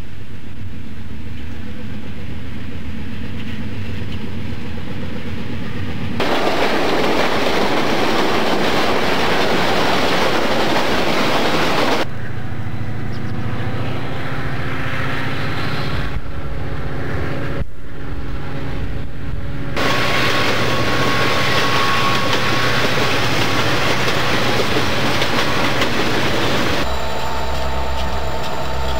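Diesel-electric freight locomotives running past, with engine noise and wheels on the rails. The sound comes as several short clips that cut abruptly from one to the next.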